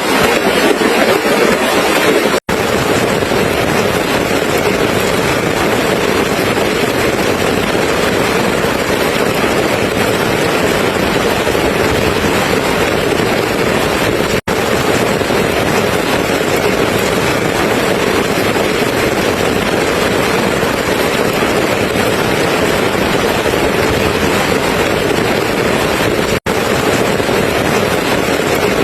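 Steady rain, a dense even hiss that cuts out for an instant three times, about 2, 14 and 26 seconds in.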